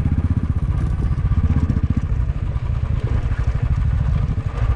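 Motorcycle engine running under way, heard from the rider's seat as a fast, steady low pulse, easing slightly a little past halfway.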